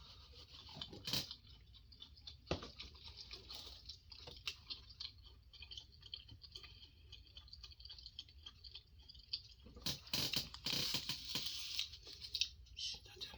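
Close-miked eating from a seafood boil: wet chewing and lip smacks with scattered sharp clicks, growing into a denser run of smacking and crackling about ten seconds in.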